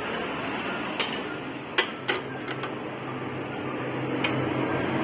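A wrench clicks against a car battery's terminal clamp and bolt as the cable is loosened, in a few sharp metallic clinks at irregular intervals. A steady hum runs underneath.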